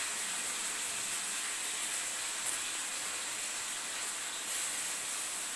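Chopped onion sizzling steadily in hot olive oil in a steel kadai on a gas burner, the first stage of frying it to golden brown.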